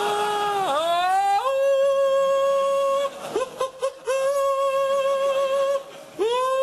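A man's voice mimicking an opera singer, singing wordless high-pitched held notes with vibrato. About a second in, the note dips and slides up into a long held note; a second held note follows after a short break, and a third swells in near the end.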